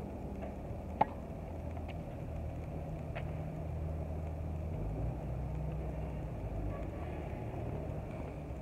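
A tennis racket strikes the ball on a serve with one sharp crack about a second in, followed by two faint ticks. A steady low hum runs underneath.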